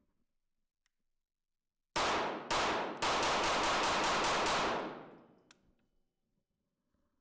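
Kriss Vector 9mm pistol being fired: two shots about half a second apart, then a rapid string of about nine shots, the echo dying away over about a second.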